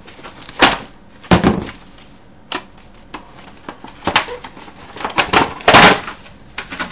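Cardboard packaging being handled and pulled open: a series of sharp crackles and scrapes, the longest and loudest a little before the end.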